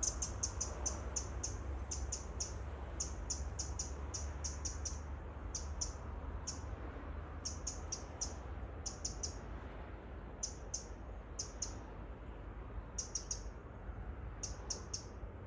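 A small bird chirping: short, high notes in quick clusters of three to six, with brief pauses between the clusters. A steady low rumble of wind or distant traffic sits underneath.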